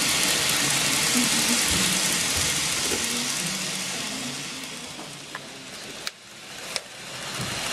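N-scale model freight train of tank wagons rolling along the layout track: a steady hiss of small wheels on rail that fades away as the train clears. Two sharp clicks come about six seconds in, then the hiss rises again near the end as another train approaches.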